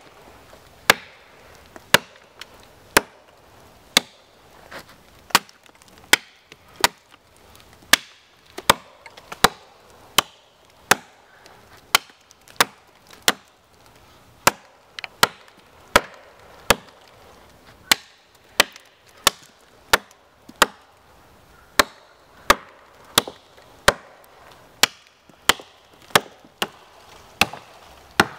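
SOG Basecamp Axe, a 16-inch camp axe with a 1055 carbon steel head, chopping into a wooden log. It lands a steady run of sharp blows, about one and a half a second.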